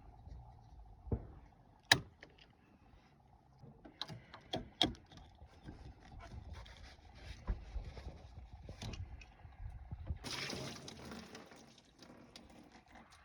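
Scattered clicks and knocks of hand work, with a noisy rush lasting about two seconds starting about ten seconds in, over a faint steady hum.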